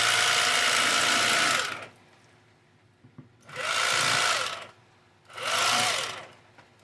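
Berkley 12-volt electric fillet knife running as it cuts the rib cage away from a trout fillet, its motor and reciprocating blades humming. It runs until about a second and a half in, stops, then runs in two short bursts, the pitch rising each time it starts and dropping as it stops.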